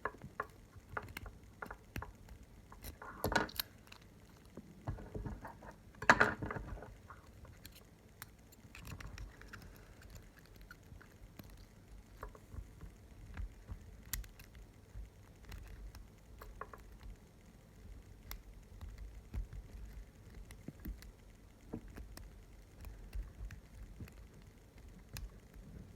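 Small metallic clicks and scrapes of a lock pick and tension wrench working the pins of a lock fitted with security spool pins, with a louder rattle of handling twice, about 3 and 6 seconds in.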